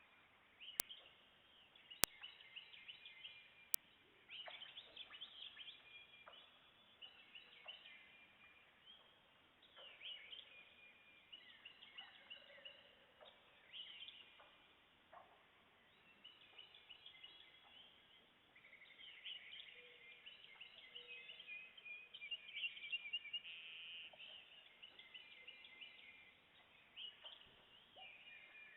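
Faint chorus of several songbirds, overlapping chirps and trills with no let-up; three sharp clicks in the first four seconds.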